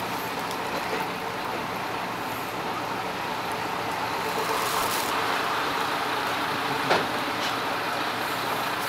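Diesel railcar running along the line: a steady rumble of engine and wheels on rail, with a single sharp click about seven seconds in.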